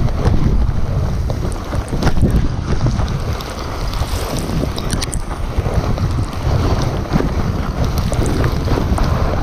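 Loud wind rumbling on a body-worn action camera's microphone over the hiss and scrape of a sled's steel runners sliding fast over packed snow, with scattered short scrapes and knocks.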